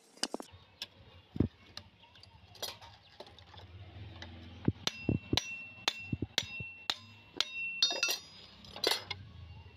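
Small hammer striking the iron head of a pharsa (axe) to knock it onto its bamboo handle: a run of irregular metal taps, coming quicker in the second half, several followed by a short metallic ring.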